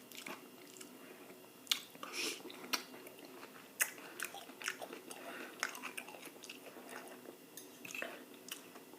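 A person chewing food close to the microphone, with irregular soft mouth clicks and smacks.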